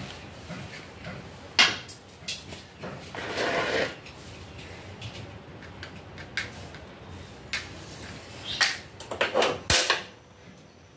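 Kitchen handling clatter: a metal wok is lifted off a gas stove with a sharp knock, followed by a rustle and a few clicks. Near the end comes a quick run of scrapes as a match is struck.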